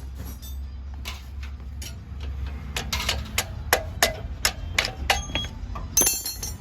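A run of sharp metal taps, about three a second, as the front axle is knocked out of a motorcycle's front wheel, followed near the end by a louder ringing metallic clink.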